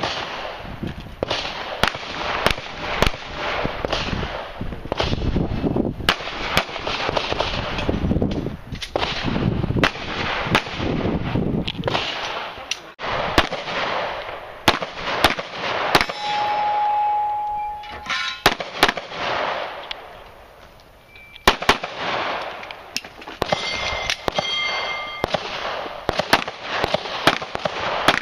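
Handgun shots fired in quick strings of a few rounds at a time. About two-thirds of the way through, a steady electronic beep lasting about a second and a half, the shot timer's start signal, and then the firing resumes.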